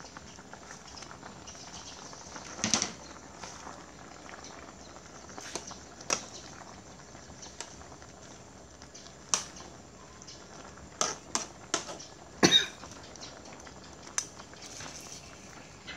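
A metal spoon and ladle clinking and scraping against an aluminium soup pot as water spinach is pushed down into the soup. The clinks are scattered and irregular, bunching up and sharpest late on, over a steady faint hiss.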